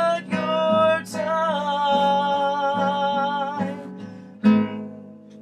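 Closing bars of an acoustic guitar song: strummed chords under a long held wordless sung note, then a final strum about four and a half seconds in that rings out and fades.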